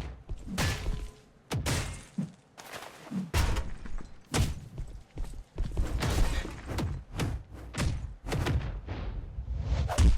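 A rapid run of heavy thumps and crashes, added sound effects, with some music under them.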